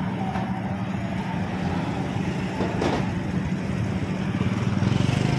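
Street traffic at close range: car and motorcycle engines running in a steady low hum, with a short rush of noise about halfway through and the hum growing a little louder near the end.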